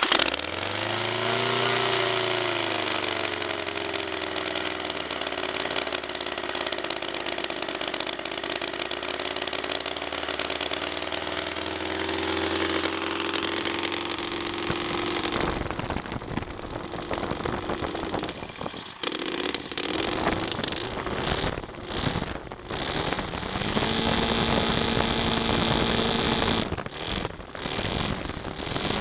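Enya VT240 four-stroke V-twin model engine with RCEXL spark ignition, bench-running. It starts at the very beginning, its note dips and climbs for a second or two, then it runs steadily. From about halfway the sound turns rougher and more uneven, with a steadier higher note again near the end.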